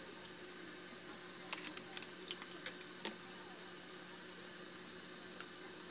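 A spoon clinking and scraping against an aluminium wok of simmering chicken adobo, several short sharp clicks from about one and a half to three seconds in, over a steady low hum.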